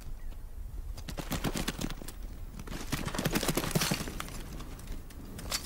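Bharal hooves clattering over rocky ground and loose stones as the animals bolt in alarm: a rapid, irregular run of sharp clicks and knocks that builds from about a second in, is thickest a little past the middle, then thins out.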